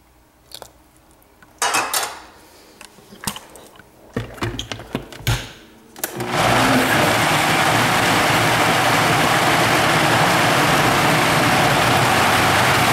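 A few knocks and clinks as the blender jar is handled, then about six seconds in a Vitamix blender starts and runs steadily at high speed, puréeing roasted vegetables and pan juice into gravy.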